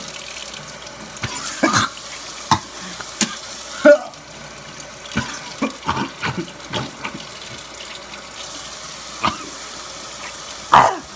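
A person coughing, spluttering and spitting in short sharp bursts at irregular intervals after swallowing cinnamon and chili powder, over a steady rush like running tap water.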